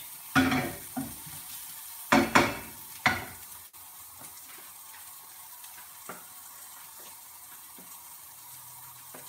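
Onion, garlic and ginger frying in oil in a pan, with a few loud knocks and clatters as the pan is stirred with a wooden spatula in the first three seconds. After that a steady faint sizzle with a few light taps.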